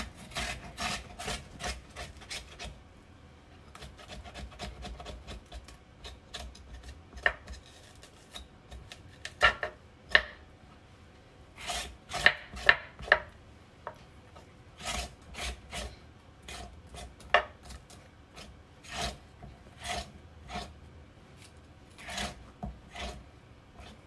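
Metal spoon scraping the white pith out of a halved bitter gourd, the part where its bitterness collects: short scraping strokes in uneven bursts with pauses, a few of them much louder.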